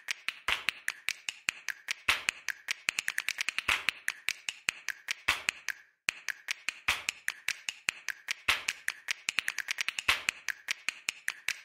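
A rapid, uneven run of sharp clicks and taps, several a second, like a percussive sound-effect track for an animated intro, with a brief break about six seconds in.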